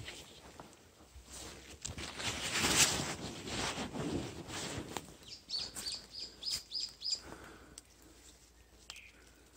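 Rustling and crunching of dry leaves and undergrowth, loudest about three seconds in, followed by a small bird calling a quick run of about seven short high chirps.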